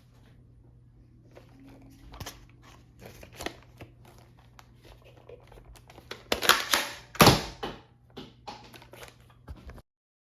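Plastic clicks and clatter of a Nerf blaster being handled and reloaded, with a cluster of louder clacks past the middle, over a faint steady low hum. The sound cuts off abruptly near the end.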